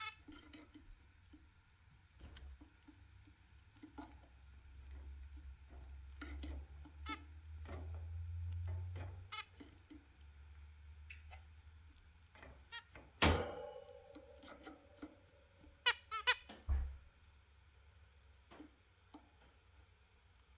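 Exhibition zebra finches giving short chirping calls and clicks at intervals, with a louder call about thirteen seconds in and a quick run of notes around sixteen seconds. A low rumble rises and fades in the middle.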